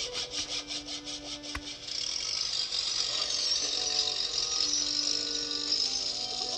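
Background music of held notes over a fast, even rattle of about six strokes a second; about two seconds in the rattle gives way to a steady high hiss.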